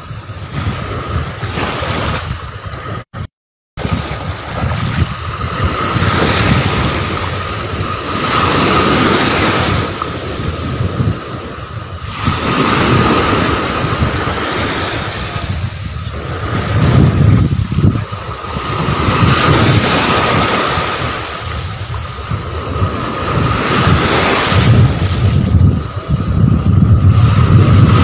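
Small sea waves washing onto a beach, the surf swelling and falling back every few seconds, with wind buffeting the microphone in low rumbles. The sound cuts out for a moment about three seconds in.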